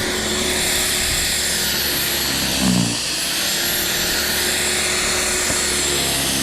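Corded electric snow thrower running steadily with a constant motor whine.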